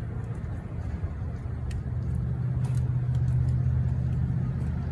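A low vehicle engine hum that swells around the middle and then eases off, with faint clicks and taps over it.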